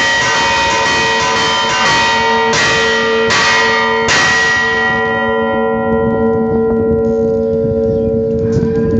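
Church bells rung by hand, struck in a quick run that thins out to a few hard strokes about a second apart. After the last of these the bells keep ringing and slowly die away, with a few light taps and one more strike near the end.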